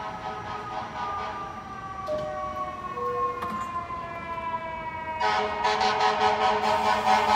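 New York City Subway train's electric traction motors whining, the tones sliding slowly down in pitch. About five seconds in, a louder, warbling whine cuts in and holds its pitch.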